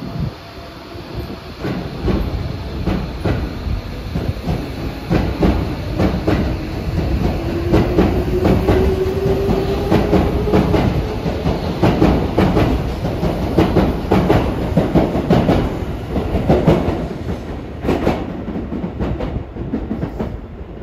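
Tobu 70000 series electric train accelerating away from a station platform: a steady low rumble with wheels clacking over rail joints as the cars pass. A rising electric whine from the traction motors comes in about a third of the way through. The sound thins out near the end.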